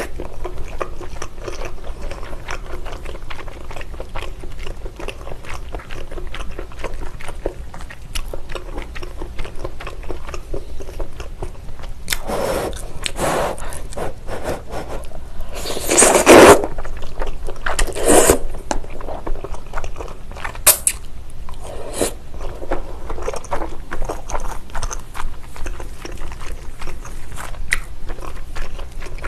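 Close-up eating of spicy tteokbokki with thick Chinese glass noodles: steady wet chewing with many small mouth clicks, and a few louder slurps of the noodles around the middle, the loudest about halfway.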